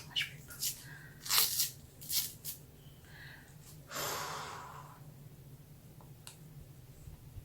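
Close-miked mouth and eating sounds: a quick run of short clicks and smacks, then a long breathy exhale about four seconds in that fades away.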